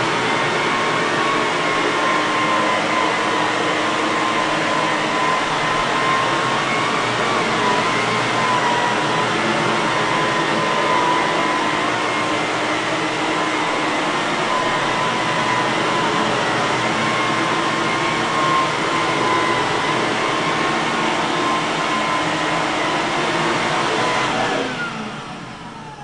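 Electrolux Olympia One (1401-B) canister vacuum cleaner running with its Rug Saver PN-4A power nozzle on carpet: a steady whine over rushing air. About a second and a half before the end it is switched off, and the motor winds down with its pitch falling.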